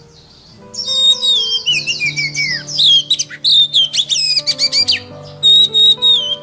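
Songbird singing a fast, varied song of whistles and falling slurred notes, starting about a second in, played as a lure recording to get a silent oriental magpie-robin singing. Steady background music runs underneath.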